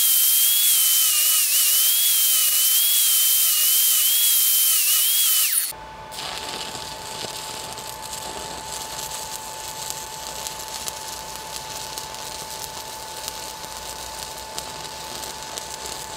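Angle grinder with a thin disc grinding a weld bead on steel pipe: a loud high whine that wavers slightly as the disc loads, ending abruptly about six seconds in. After that comes the quieter, steady crackling hiss of a stick-welding arc on the pipe, with a faint steady tone beneath it.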